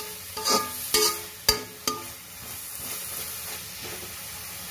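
Metal spatula knocking and scraping against a metal kadai while stirring chopped fenugreek leaves, with four ringing clangs in the first two seconds. Then the greens sizzle steadily as they sauté in oil, wilting in their own moisture with no water added.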